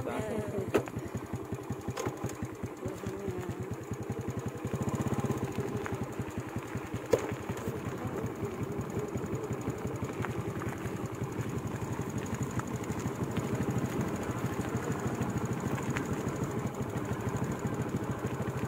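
Small motorcycle engine running steadily as the bike rides along a dirt track, with two sharp knocks, one just under a second in and one about seven seconds in.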